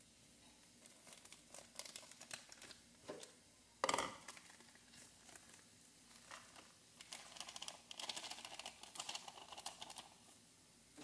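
A spoon scraping and tapping in a small plastic pot of grated parmesan, with light plastic crinkling and rustling. There is one sharp knock about four seconds in, the loudest sound.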